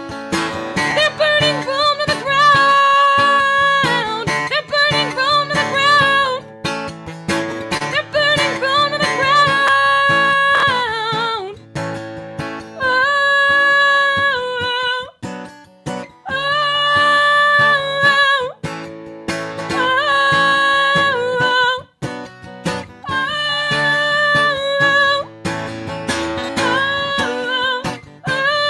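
A woman singing long, wavering held notes in phrases over a strummed acoustic guitar.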